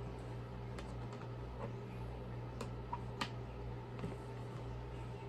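Plastic clicks and light knocks from handling a vacuum's clear dust cup and cyclone assembly while trying to seat it on the upright vacuum, a few sharp clicks spaced about a second apart. A steady low hum runs underneath.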